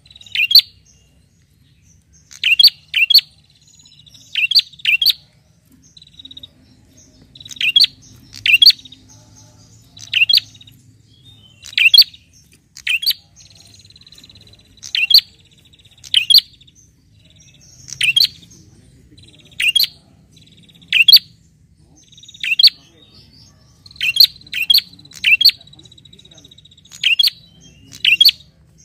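A caged prenjak calling loudly and repeatedly, sharp high chirps coming every second or two in runs of two or three, with a thin buzzing trill between some of them. These are the calls it makes to challenge a rival.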